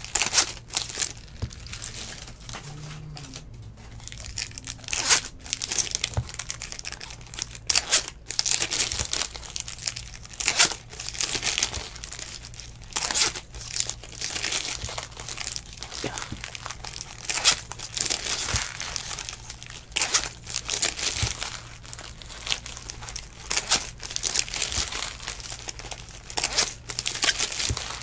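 Foil wrappers of Topps Bowman baseball card packs being crinkled and torn open by hand: irregular crinkling and tearing that comes and goes, over a faint steady low hum.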